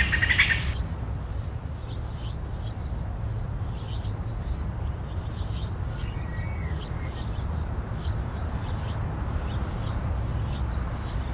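Outdoor field-recording ambience: a steady low rumble throughout, with faint short bird chirps scattered through it. A brief louder high-pitched burst sounds right at the start.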